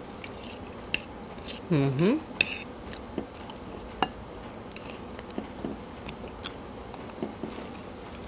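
Metal fork clinking and scraping against a plate in scattered sharp clicks as food is scooped up. A short sound from the eater's voice, falling then rising in pitch, comes about two seconds in.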